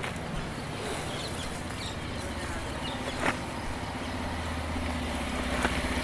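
A motor engine running steadily with a low hum that grows a little louder in the second half, and a single sharp click about three seconds in.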